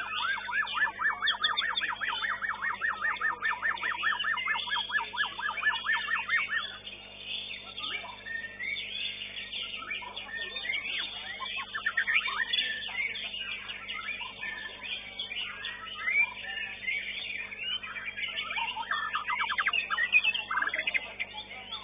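White-rumped shama (murai batu) singing. A fast repeated trill runs through the first six and a half seconds, then varied chirping phrases follow, and a second brief trill comes near the end.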